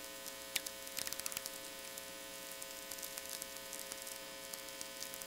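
VLF natural radio from a loop-antenna receiver: a crackle of sferics, the clicks of radio impulses from distant lightning, with a cluster of them about a second in. About half a second in comes one tweek, a short falling whistle. It all sits over a steady mains hum.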